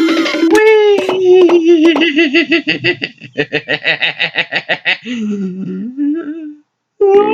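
Cartoon-style sound effects and rapid, pulsing laughter. A click and a pitched glide about half a second in are followed by several seconds of quick, evenly repeated laughing, then a lower wavering voice-like sound that cuts off to silence just before the end.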